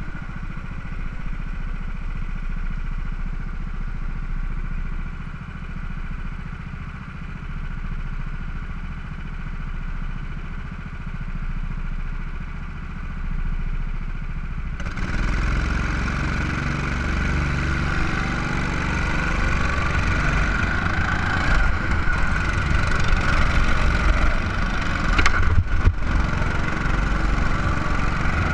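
A go-kart's small petrol engine running under way, heard from on board the kart. About halfway through the sound abruptly gets louder and fuller, and a few sharp knocks come in the second half.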